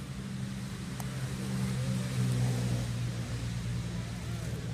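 A motor vehicle's engine running with a steady low hum, growing louder to a peak about halfway through and then easing off, as a vehicle passing by. A single faint click about a second in.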